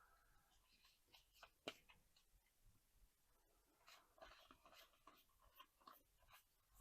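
Near silence with faint handling noises from trading cards being sorted: a single light tick less than two seconds in, then a few soft rustles and ticks.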